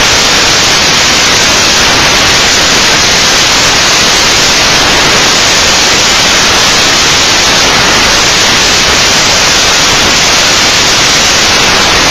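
Loud, steady static hiss like white noise, masking every other sound.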